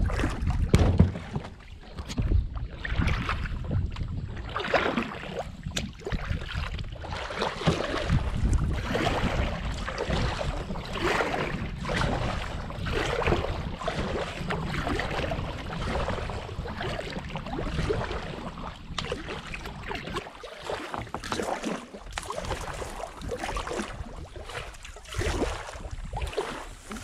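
Kayak paddle strokes pulling through calm water, splashing and dripping about once a second, over a low rumble of wind on the microphone.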